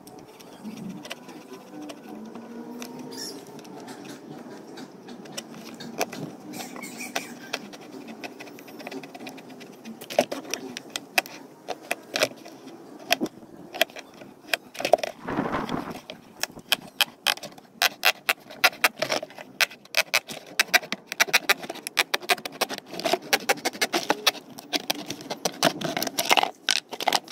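Utility knife blade sawing through the wall of a plastic bucket: rapid scratchy clicks and scrapes as the blade works through the plastic, sparse at first and coming thick and fast from about ten seconds in.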